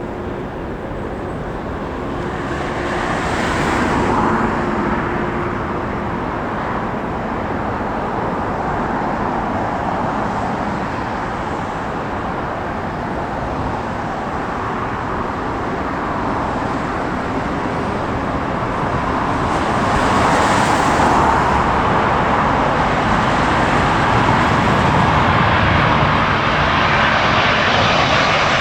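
Large jet airliner engines heard in a continuous rushing roar that swells about four seconds in and again about twenty seconds in, staying loud to the end.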